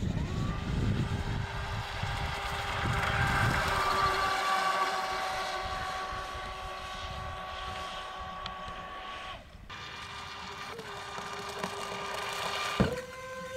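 Electric RC jet boat (Streamline RC Thrasher on 6S LiPo) running at speed: a steady high motor whine that drops out briefly twice, with wind rumble on the microphone in the first few seconds.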